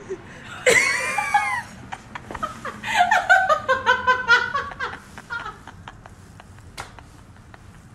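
A person laughing: a run of quick laughs falling in pitch about three to five seconds in.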